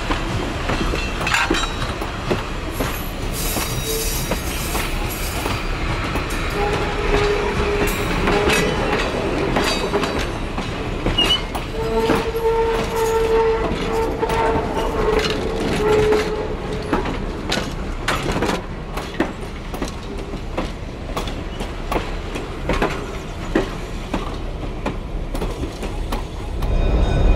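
Heavyweight steel passenger coaches rolling past close by, their wheels clicking and knocking over the rail joints. A steady tone sounds twice in the middle, about 7 s and 12 s in.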